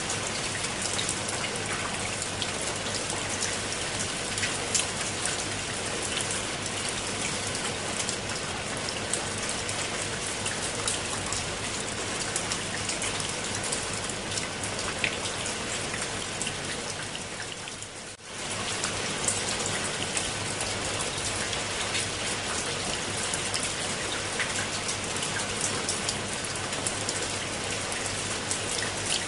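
Steady rain falling on leaves and wet concrete steps, many small drop hits over an even hiss. It dips briefly and comes back about two-thirds of the way through.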